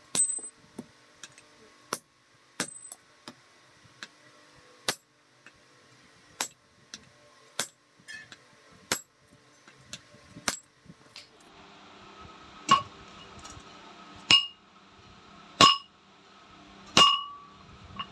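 Hammer blows on a red-hot iron bar on an anvil. For the first ten seconds or so there are short, sharp taps about every 0.7 s. Then come four louder, ringing clangs about a second and a half apart.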